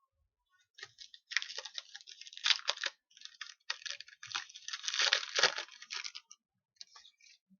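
Hockey card pack wrapper being torn open and crinkled by hand, in two stretches of crackling with a short break between them.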